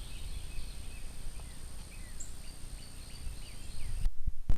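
Outdoor background ambience: a steady low rumble with birds chirping now and then and a thin, steady high-pitched tone. Near the end the sound changes abruptly with a single sharp click.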